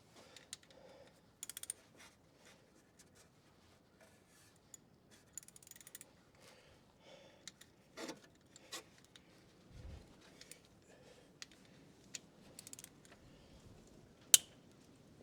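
Hand ratchet clicking in short bursts on the idler pulley's T50 Torx bolt, among scattered clinks of tools on metal. There is a single sharp, loud click near the end.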